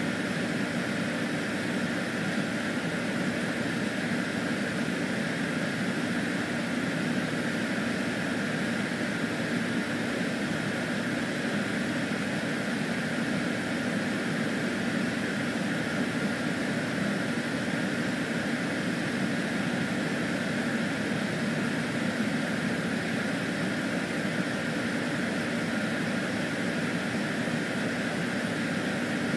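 Steady, unchanging droning noise with a low hum underneath, like a fan or air handler running; no calls from the cat.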